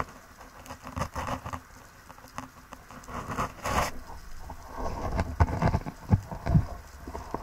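Underwater ambience picked up by a camera in a waterproof housing: irregular crackling and pattering clicks, with a few dull low knocks about five to six and a half seconds in.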